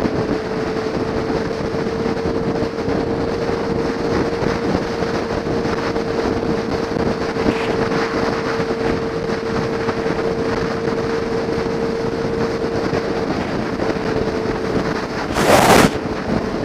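Motorcycle ridden at steady highway speed: wind rushing over the bike-mounted microphone, with a steady engine drone. A brief, louder rush of noise comes near the end.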